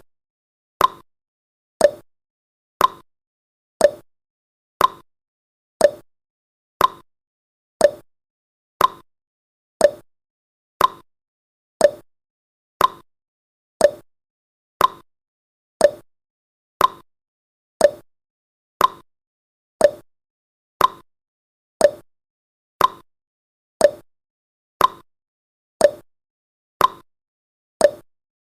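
Countdown timer sound effect: a short, sharp click once every second, each fading quickly into silence before the next.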